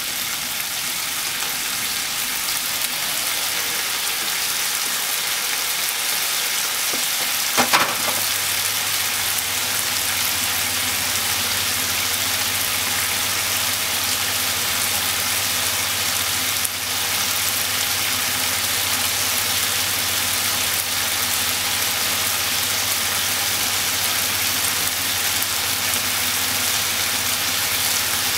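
Pork belly, okra and onion sizzling in a frying pan, a steady frying hiss. About eight seconds in there is a sharp click, and from then on a low steady hum sits under the sizzle.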